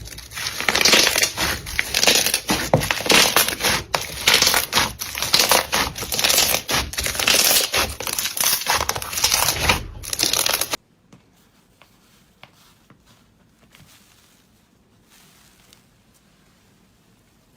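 Slime being squished and pressed by hand, a dense run of crackling clicks and pops that cuts off suddenly about eleven seconds in, after which only faint, scattered handling sounds remain.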